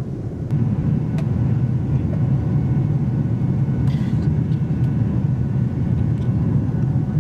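Steady rumble of a jet airliner's engines and airflow, heard inside the cabin at a window seat over the wing as the plane climbs just after takeoff. It steps up sharply about half a second in and then holds level.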